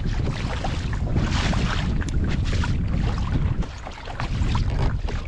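Wind buffeting the microphone on open water, a fluttering rumble with hiss from the sea, easing briefly about four seconds in, with a few small clicks.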